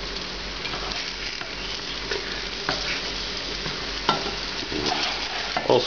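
Floured eggplant slices sizzling and crackling in olive oil in a heavy nonstick frying pan, with the occasional scrape and tap of a spatula as the slices are turned.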